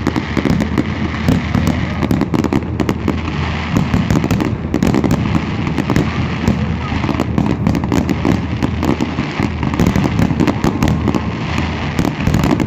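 Aerial fireworks going off in quick succession, a dense, unbroken run of bangs and crackles from many shells bursting at once.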